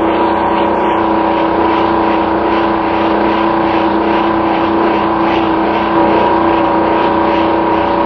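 Steady motor drone of a deep-sea submersible: a fixed hum with a whir that pulses about two to three times a second.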